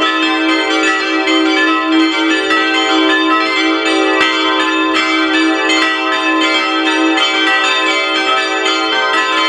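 Full peal of five bronze church bells from the Rincker foundry, tuned e'' g'' a'' c''' d''', swinging and ringing together with their strikes continuously overlapping.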